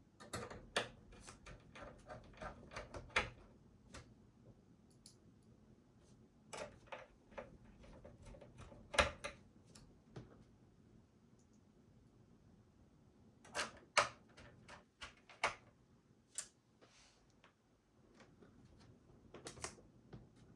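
Irregular clicks, taps and light knocks of small plastic and metal parts inside an Asus V241E all-in-one PC being handled and fitted back together, some in quick clusters of ticks.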